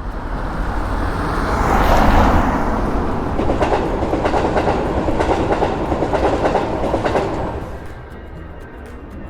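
Train passing by at speed: a rushing noise swells in, then a rapid clickety-clack of wheels over rail joints, fading away near the end.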